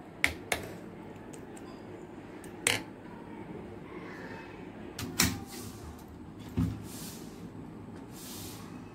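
A metal spoon clinking against a stainless-steel bowl of milk-soaked roti, several sharp separate clinks over a few seconds, over a steady low hum.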